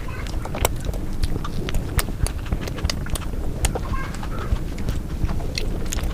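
Close-miked chewing and biting of food, with many sharp, irregular crunches over a low rumble.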